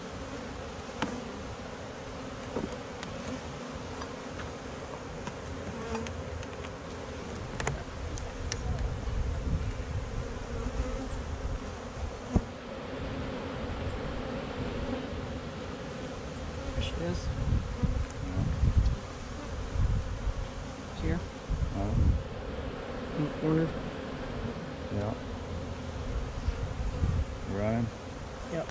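Honey bees buzzing around an opened hive box: a dense, steady hum, with single bees passing close in short rising and falling buzzes. Now and then there are light knocks from the wooden frames being handled.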